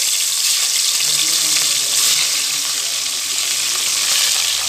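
Fish pieces sizzling as they fry in hot mustard oil in a kadhai: a steady hiss.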